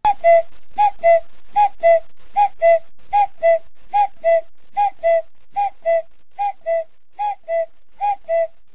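A two-note falling whistle call, a short high note then a lower one, repeated about eleven times at a steady pace and slowly fading.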